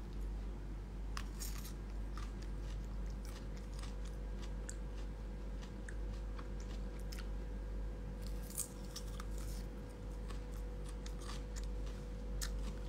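Raw carrot being chewed: scattered soft crunches and clicks, over a steady low hum.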